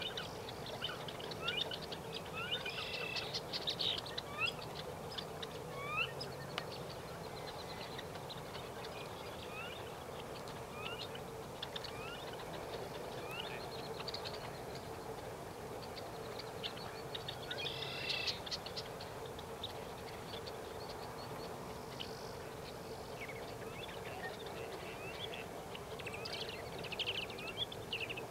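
A flock of red-necked phalaropes calling: short, sharp rising chips scattered through, with busier bursts of calls about three seconds in, past the middle, and near the end. A steady low hum sits underneath.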